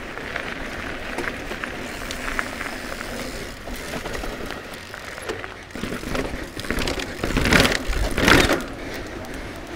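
E-mountain bike's tyres rolling fast over a gravel and tarmac race track with a steady hiss. Near the end the bike clatters loudly, with two big knocks, as it drops down stone steps.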